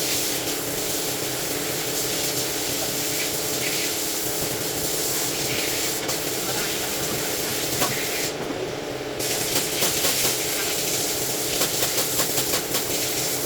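Steady hiss over a steady low machine hum, with scattered light clicks and knocks from about nine seconds in.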